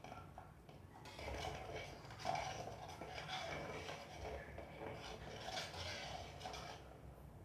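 Irregular scraping and rubbing of kitchen utensils during food preparation, starting about a second in and going in uneven surges.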